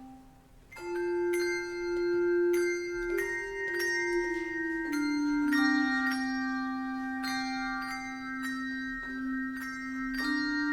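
Handbell choir playing: several bells struck together and ringing on, lower held notes sounding under higher ones. After a soft lull at the start, a new phrase strikes in about a second in.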